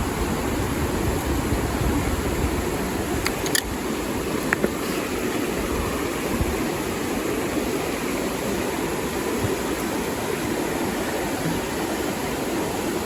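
Mountain stream water rushing steadily, with a few sharp clicks about three to four seconds in.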